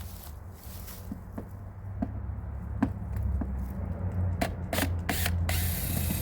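Scattered mechanical clicks and rattles of hand tools being handled, over a steady low hum, with a burst of hiss near the end.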